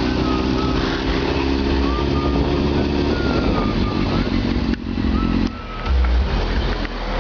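Honda CBR600F4i's inline-four engine running under heavy wind noise while riding. The engine note is plain for about the first three seconds, then sinks into the rush, with brief drops in level near the end. A faint wavering high whistle comes and goes.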